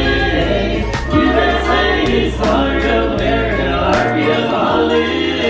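Background music with singing voices over a bass line, with a beat about once a second.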